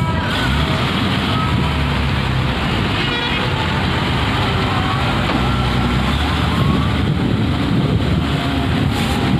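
Heavy diesel engines of a parked coach and trucks idling, a steady low rumble.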